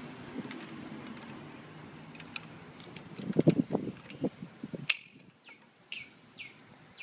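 Quick-release plate being handled and fitted into the pan/tilt head's clamp on a camera slider: light clicks, then a cluster of knocks and rattles about halfway through and a sharp snap just after. From then on a bird chirps repeatedly in short calls that fall in pitch, over a low steady hum in the first half.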